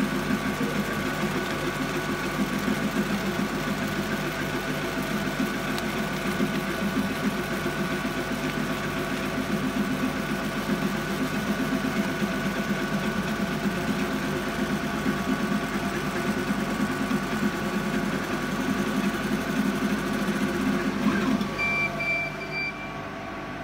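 Laser engraver's head and gantry scanning rapidly back and forth while raster-engraving wood: a fast, busy rhythmic buzz of the motion system over a steady hum. The scanning stops about 21 seconds in, and a single high beep follows for about a second.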